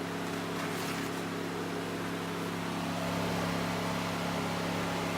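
Electric radiator cooling fans running steadily with a constant hum, wired to come on with the ignition.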